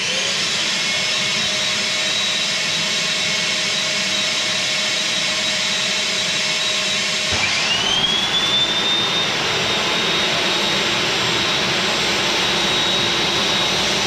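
Shop vacuum switched on and running steadily. About seven seconds in, the Ozito 2000 W table saw's motor starts with a quick rising whine and then runs on at speed together with the vacuum.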